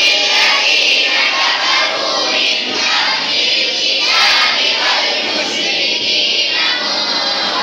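A large group of boys' voices chanting together in a loud chorus, in phrases about a second long.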